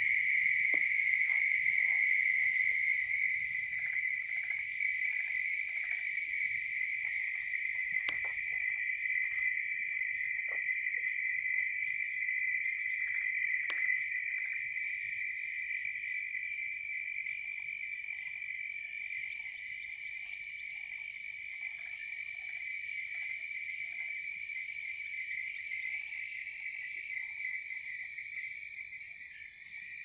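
A steady, high-pitched chorus of crickets trilling without a break, with short lower calls of frogs scattered through it and a couple of faint clicks.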